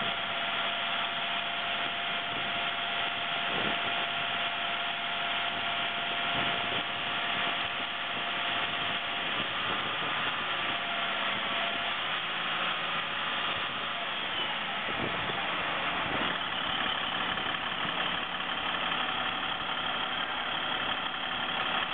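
International MRAP truck's D8.7 inline-six turbo diesel running steadily while warming up, about 1500 rpm, with the turbocharger's whistle as a thin steady tone over the engine.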